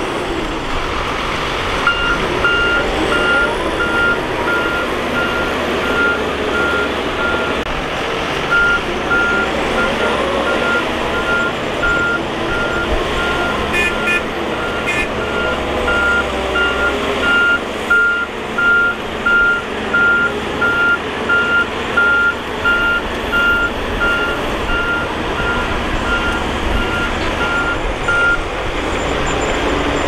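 A bulldozer's reversing alarm beeping steadily, about twice a second, over its running diesel engine. The beeping starts about two seconds in and stops shortly before the end.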